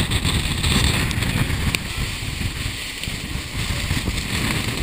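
Gale-force typhoon wind buffeting the microphone: a loud, gusting low rumble under a steady hiss.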